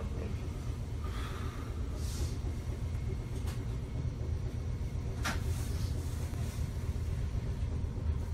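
Inside a Sapporo streetcar: the car's steady low rumble, with a few sharp clicks and knocks, the sharpest about five seconds in.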